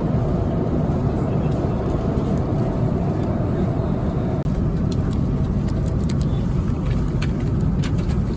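Steady low rumble of a moving vehicle, with a few faint clicks in the second half.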